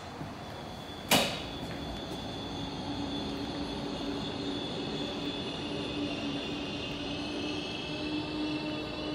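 A sharp knock about a second in, then a steady mechanical hum with a low tone and a high whine that sets in and holds: a funicular car and its rail machinery running at the station.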